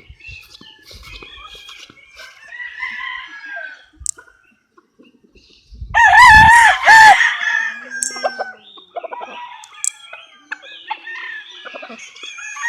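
Chickens: a rooster crows once, loudly, a little after halfway through, lasting about a second and a half. Quieter clucking and short chicken calls come before and after it.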